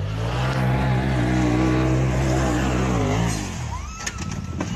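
Side-by-side UTV engine running hard at steady high revs while climbing a steep dirt hill, easing off about three and a half seconds in. A few sharp knocks follow near the end.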